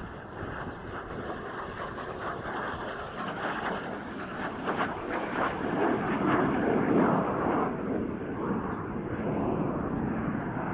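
Small jet aircraft flying a display pass overhead. The engine noise is a steady rushing sound that swells to its loudest about two-thirds of the way through.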